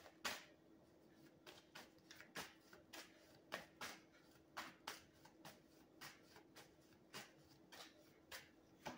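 A deck of tarot cards being shuffled by hand: soft, irregular card slaps and snaps, about two to three a second.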